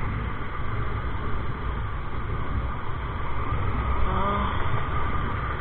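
Wind rumbling on the microphone of a TVS Apache RTR 160 motorcycle ridden at steady cruising speed, its single-cylinder engine running beneath.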